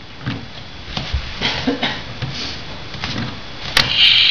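Light plastic knocks and handling on a toy kitchen stove, then near the end a click as its knob is turned and the toy burner's sizzling sound effect starts, a steady hiss.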